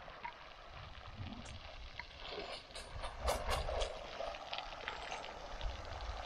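Water jetting from a hose and spattering onto a freshly poured concrete slab that is being wet down to cure. The slab is covered with burlap and its rebar is sticking up. A steady rush with scattered splashes, busiest about three seconds in.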